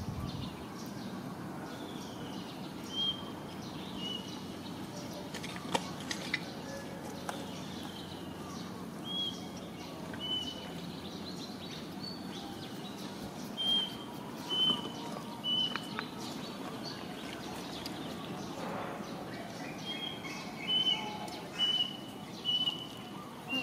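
A bird chirping: one short, high call repeated a dozen or so times, several in quick succession near the end, over a steady low outdoor hum.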